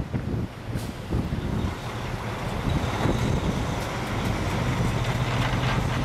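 Semi-truck with a tanker trailer driving past through slush, its diesel engine humming steadily over the hiss of tyres, growing louder as it comes close.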